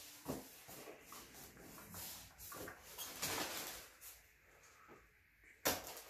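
Gloved hands handling and opening a white cardboard box: irregular scraping, rustling and light knocks, with a sharper knock near the end.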